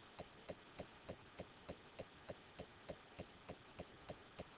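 Near silence with a faint, regular ticking, about three ticks a second.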